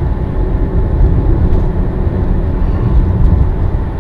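Steady low rumble of road and engine noise inside a car driving at highway speed.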